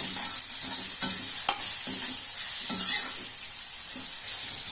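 Coarsely crushed garlic sizzling in hot oil in an iron kadhai, stirred with repeated scrapes and knocks against the pan about once or twice a second, while the garlic is lightly browned.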